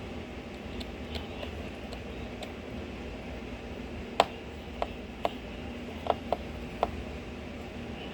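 Small sharp clicks from a screwdriver working out the tiny screws of a Samsung Galaxy S8 Active phone: a few faint ticks early, then six crisp clicks in quick succession about four seconds in, the first the loudest.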